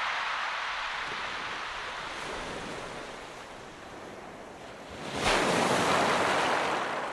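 Sea waves breaking and washing on a beach. The wash of one wave dies away over the first few seconds, then another breaks loudly about five seconds in and recedes near the end.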